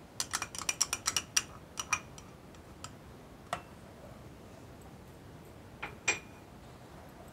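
Serving spoon knocking against the rim and sides of a metal pot while stirring thick milk, with a short ringing edge on each knock. There is a quick run of about ten knocks in the first second and a half, then a few scattered ones, the loudest about six seconds in.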